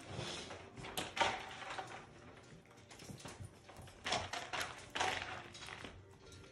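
Young labradoodle puppies playing and scuffling in a pen, with a run of knocks and taps from their paws and toys, bunched about a second in and again around four and five seconds in.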